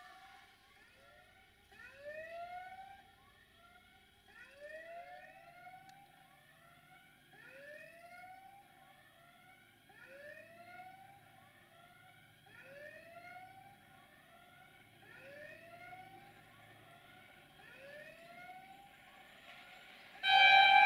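An electronic level-crossing warning sounds a rising whoop over and over, roughly one every second and a half, while a diesel locomotive draws near. Near the end the locomotive's horn blows loudly and steadily.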